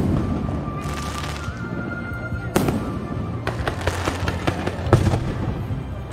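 Aerial fireworks going off: two sharp bangs about two and a half and five seconds in, with a rapid run of crackling pops between them.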